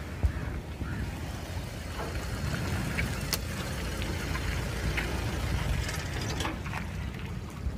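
Calm sea water lapping at the shore, with wind rumbling on a Google Pixel 4a's built-in microphone. A few faint clicks sound through the middle and later part.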